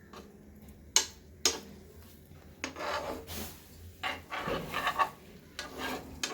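A spatula stirring chicken wings through a thick sauce in a frying pan: two sharp knocks on the pan about a second in, then rough scraping strokes across the pan, and another knock near the end.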